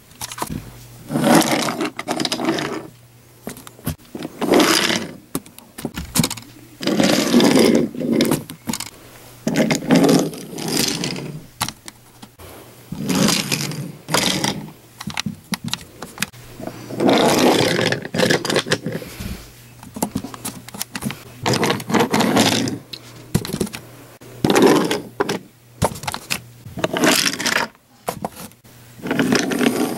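Wooden toy railcar rolling along wooden track in repeated runs of a second or two, its wheels rumbling and clattering on the wood, with short pauses between runs. A faint steady low hum sits underneath.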